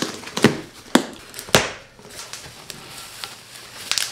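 Scissors slitting the packing tape on a cardboard box, three sharp strokes in the first second and a half. Then cardboard and bubble-wrapped parts rustle as the box is opened, with a burst of crinkling near the end.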